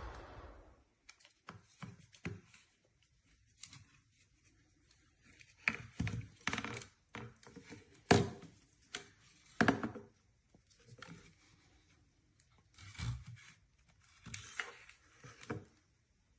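Scattered clicks, knocks and rubbing of objects being handled, irregular and with longish quiet gaps. The loudest knocks come about six, eight and ten seconds in.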